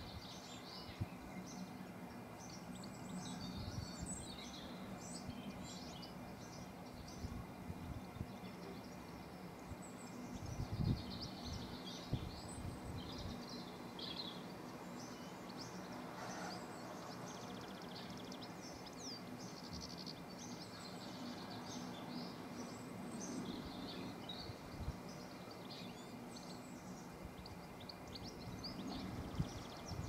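Faint chorus of small songbirds chirping and singing over a steady outdoor background, with a few low thumps about eleven seconds in.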